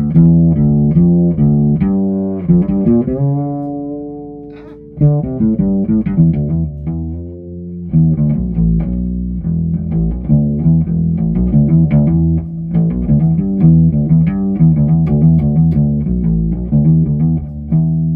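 Ibanez SRH505F fretless bass played with its tone control fully up: a run of quick plucked notes, a slide up into a held note that fades about three to five seconds in, and a gliding phrase falling in pitch around six to seven seconds. The tone is bright and clear, with little piezo quack.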